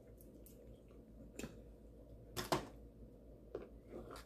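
A few short, wet mouth smacks and clicks from licking seafood-boil butter sauce off the fingers, spaced apart in a quiet room. The loudest comes about halfway through.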